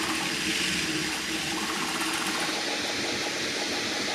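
Bambu Lab A1 Mini 3D printer running mid-print, a steady whoosh that is mostly its cooling fan, over motor hum. Partway through it gives way to the full-size Bambu Lab A1 printing, a similar steady noise with the fan less prominent.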